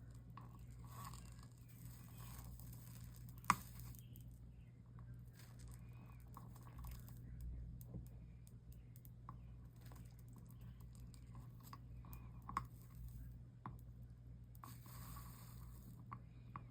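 Faint sizzling and crackling of a soldering iron melting solder and flux along stained-glass joints, in short spells, over a steady low hum. A few sharp taps are heard, the loudest about three and a half seconds in and another near twelve and a half seconds.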